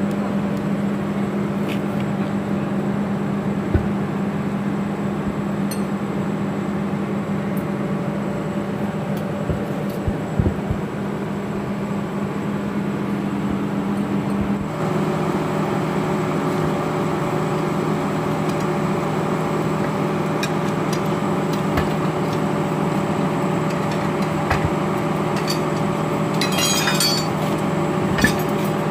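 Steady machine drone with a fixed low pitch, and light metallic clinks from steel drive-axle parts being handled, with a cluster of them near the end.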